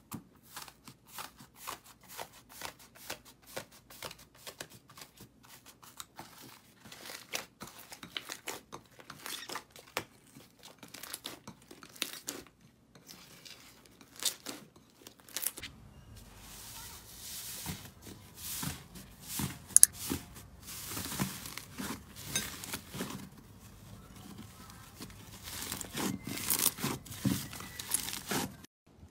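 Hands squeezing and kneading slime: a run of short sticky clicks and crackles, spaced out at first, then denser and louder from about halfway through.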